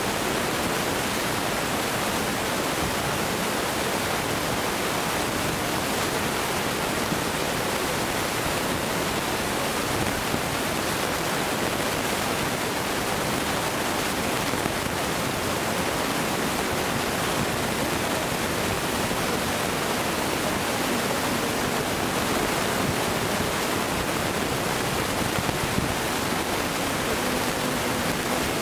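Steady, even rushing noise with no distinct events or changes.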